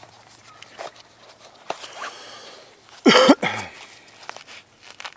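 A sudden, short, loud burst of churning and splashing from the river about three seconds in, which the boater guesses is swamp gas erupting up from deep in the water.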